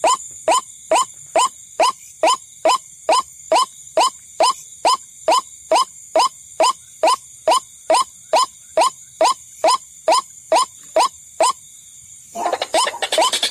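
White-breasted waterhen (ruak-ruak) lure call: a monotonous run of short, rising single notes, about two and a half a second, with a faint steady high whine behind them. The notes stop near the end. About a second later a louder, dense jumble of overlapping raucous calls breaks in.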